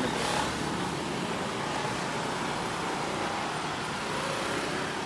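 Steady road traffic noise: motor vehicles running in an even, continuous rush, with no single event standing out.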